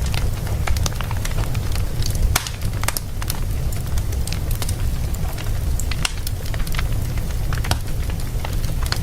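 Wood fire burning in a fireplace: irregular sharp crackles and pops over a steady low rumble of flame.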